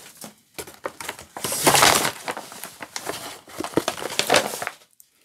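Packaging rustling and crinkling as hands rummage in an opened parcel, with small knocks among it. It is loudest about a second and a half in and dies away shortly before the end.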